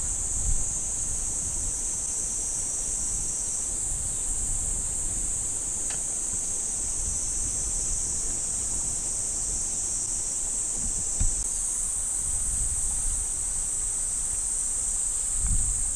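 A steady, high-pitched chorus of summer insects, unbroken throughout, with occasional low rumbles of wind on the microphone.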